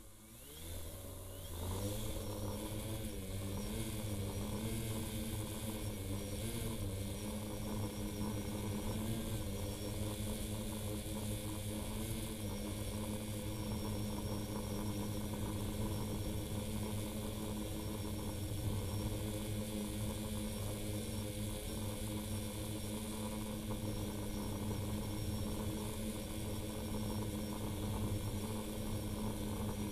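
Electric motors of a multirotor drone spinning up from rest, their pitch rising and wavering for several seconds before settling into a steady drone in flight.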